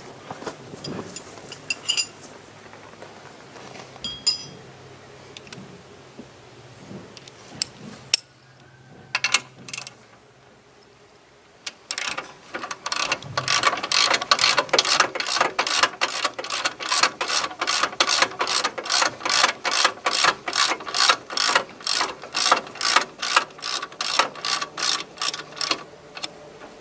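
Hand ratchet clicking in fast, even strokes, about three clicks a second, as a bolt on a steering box frame brace is turned. Before that, a few scattered light metal clinks; the ratcheting starts about halfway through and stops just before the end.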